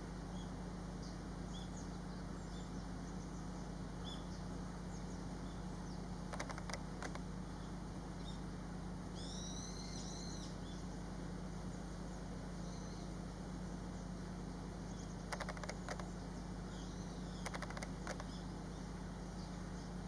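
Crested kingfisher giving harsh rattling calls in three short bursts: about six seconds in, around fifteen seconds and near eighteen seconds. A quick run of arched chirps comes near the middle, and faint small-bird chirps are heard over a steady low hum.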